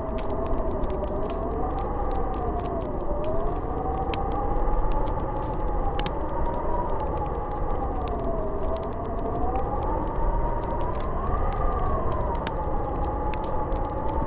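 Snowstorm wind howling over a low rumble, its whistling pitch slowly rising and falling, with faint scattered ticks.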